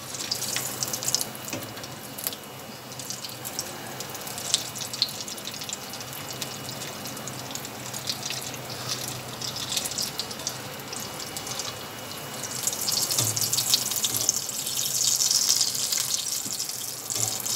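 Breadcrumb-coated bread rolls deep-frying in hot oil, a steady crackling sizzle with scattered pops, as they are turned with a wire skimmer to brown evenly on both sides. The sizzle grows louder for a few seconds about two-thirds of the way through.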